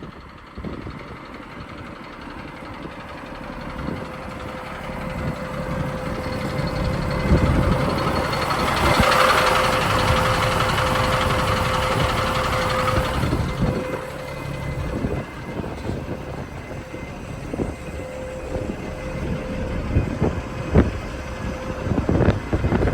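Cummins diesel engine of a 1990 Ford concrete mixer truck running, its rumble building louder after a few seconds. A loud hissing rush rises over it near the middle and fades after several seconds. A few sharp knocks come near the end.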